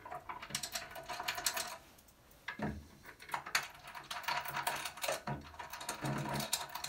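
Large steel bolts with washers being threaded by hand into an exercise bike's front stabiliser: quick, dense metallic clicking and rattling, with one low knock about two and a half seconds in.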